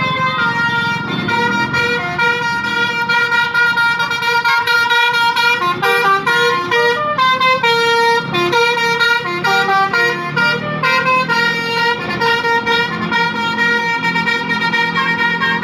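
Bus 'telolet' horn, a set of musical air horns, playing a melody in held notes that step from one pitch to the next, over a low engine rumble that is heaviest at the start and near the end.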